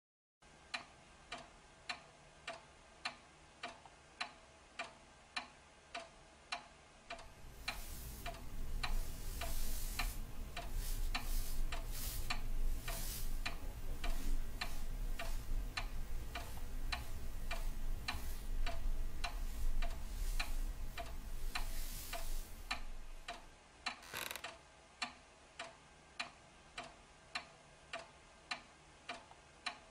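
A clock ticking evenly, about twice a second. From about seven seconds in, a louder low rumble and hiss rises under the ticks and fades out again a little after twenty seconds.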